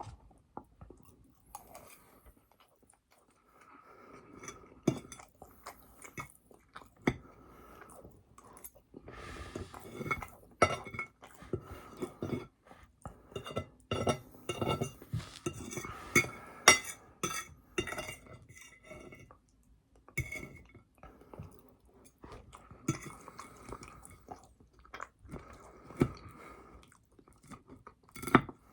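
Close-miked chewing and crunching of food, with irregular clicks and smacks. It is busiest through the middle, with a few brief pauses.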